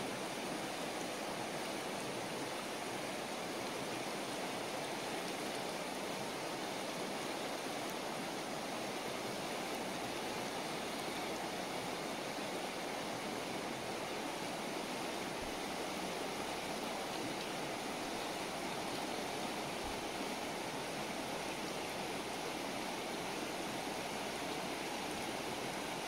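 Shallow river rushing steadily over rocks and small rapids.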